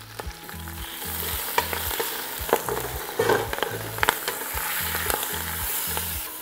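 Swiss chard leaves and garlic tops sizzling in hot olive oil and lemon juice in a large stainless steel pot, wilting over high heat. The sizzle swells about a second in and holds. A metal utensil stirring the greens clicks against the pot now and then.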